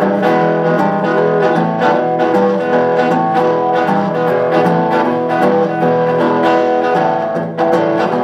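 Instrumental intro of a rockabilly song: strummed and plucked guitar over a steady beat.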